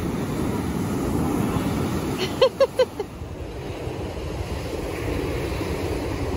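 Ocean surf breaking, with wind buffeting the microphone. About two and a half seconds in, three short pitched calls come in quick succession, the loudest thing heard.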